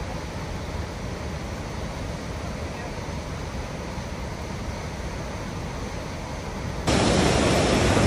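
Huka Falls on the Waikato River: a large volume of whitewater rushing through a rocky gorge, a steady, even noise. About seven seconds in it gets suddenly louder, as heard from closer to the torrent.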